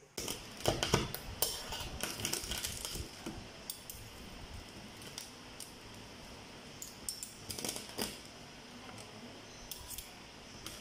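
Stainless steel fork and spoon clinking and scraping against a metal plate while digging into crispy deep-fried spaghetti, a quick run of clicks at first, then sparser taps.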